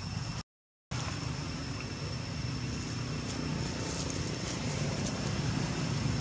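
Steady low outdoor background rumble with a faint thin high whine above it; the audio cuts out completely for about half a second near the start.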